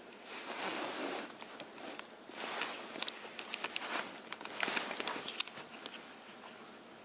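Rustling and scuffing on a shaggy carpet in several short bouts with small scattered clicks, as a baby ferret moves about and is handled and picked up by hand.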